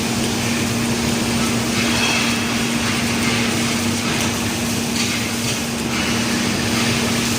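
Robotic welding cell running: a steady electrical hum under an even hiss, with a few faint crackles about four to six seconds in.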